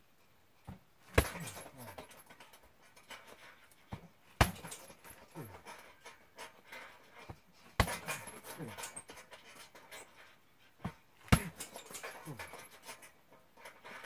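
Heavy punching bag struck by four hard kicks, about three and a half seconds apart, each followed by a short falling creak as the bag swings on its hanger. Hard panting breaths and light footfalls between the kicks.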